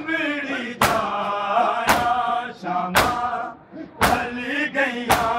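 Men's voices chanting a Punjabi noha in unison, cut through by the slaps of a crowd's hands striking bare chests together in matam, a sharp slap about once a second, five in all.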